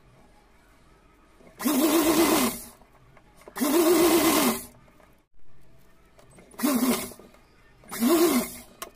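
Sewing machine running in four short bursts as lace is stitched onto the fabric. Each burst carries a wavering whine: the first two last about a second each, the last two are shorter and come near the end.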